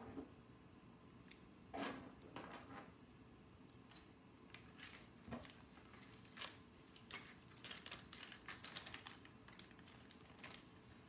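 Small metal screws clinking in a small plastic bag as it is handled and opened, with light crinkles of the plastic. Faint, irregular sharp clicks.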